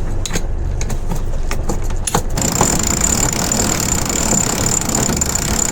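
Sailboat engine running steadily while a winch works the mainsail line: several sharp clicks in the first couple of seconds, then from about halfway a steady hiss with a high, thin whine.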